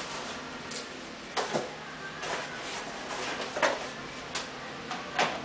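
Cardboard accessory box being handled and opened by hand: about four short scrapes and rustles of cardboard a second or so apart.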